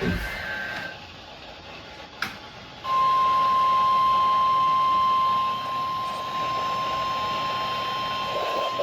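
Emergency alert attention signal. A short chirp of digital header tones is followed by a pause. Then, about three seconds in, the single steady 1050 Hz weather-radio alarm tone comes on and holds, dropping somewhat in level about halfway through.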